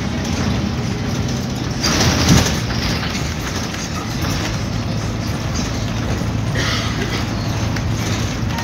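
MAN Alexander ALX300 single-deck bus heard from inside the saloon while moving: a steady engine drone under the rattling of the body. A louder jolt and rattle comes about two seconds in, and a shorter one near seven seconds.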